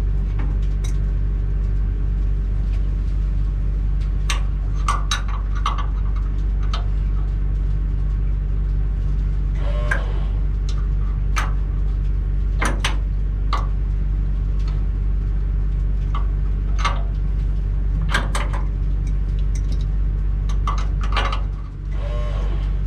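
Metal tools clinking and knocking against fuel-tank drain fittings as a shifter works a drain bung, in short scattered clicks. Under them runs a steady low mechanical hum from the engine room.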